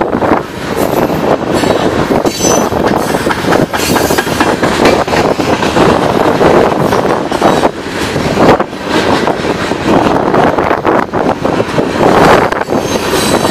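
Freight train of covered hopper cars rolling past close by: steady, loud rumble and rattle of steel wheels on the rails, with frequent clanks and knocks from the cars.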